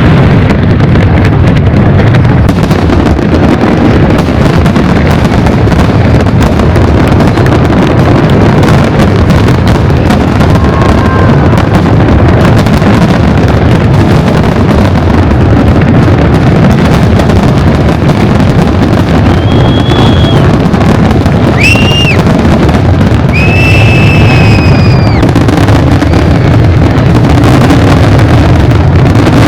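Fireworks exploding in a dense, continuous barrage of overlapping bursts, loud throughout. A few short high whistling tones sound about two-thirds of the way through.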